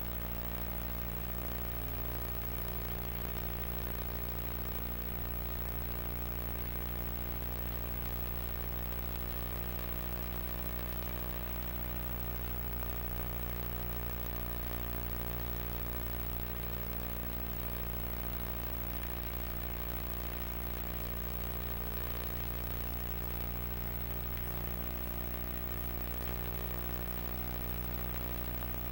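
Steady low electrical hum with a buzzing stack of overtones over an even background hiss, unchanging, with no programme sound.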